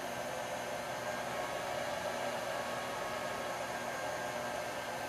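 Steady whooshing hiss of a fan running, with a faint steady high tone and no change in level.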